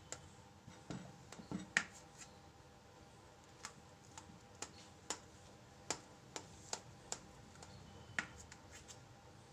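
Knife blade clicking and tapping against a steel plate while cutting through a soft steamed khaman dhokla: faint, sharp ticks at irregular intervals, a dozen or more.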